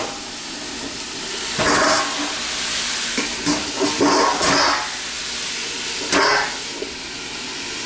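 Kale and splashed-in coconut vinegar sizzling and steaming in a hot pan under a stainless steel mixing bowl used as a lid, with a steady hiss. The metal bowl clatters against the pan three times, about two, four and six seconds in, as it is settled in place.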